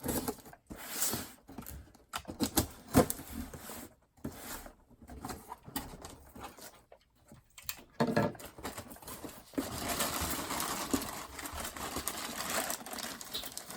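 A box of boxed figures being opened and unpacked by hand: irregular rustling, scraping and light knocks, then a longer stretch of continuous rustling and crinkling about ten seconds in.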